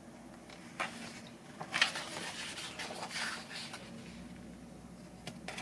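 Pages of a paper colouring book being turned and smoothed down by hand: a few short rustles of paper, the loudest a little under two seconds in.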